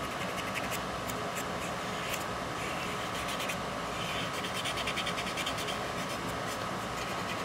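A small paintbrush scratching and scrubbing along the painted plastic rim of a model railroad gondola car in quick, repeated strokes, working the paint back toward bare plastic. Under it runs a steady hum.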